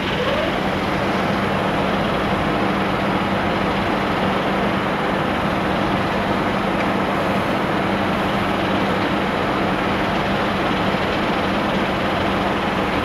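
Steady running noise with a constant hum from an SNCB double-deck passenger train standing at the platform, its onboard equipment running while it waits.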